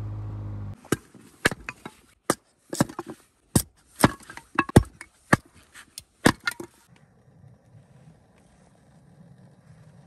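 Hatchet chopping and splitting kindling wood: about fifteen sharp chops at an uneven pace, some in quick pairs, that stop about six and a half seconds in. Under a second in, a steady low hum cuts off just before the first chop.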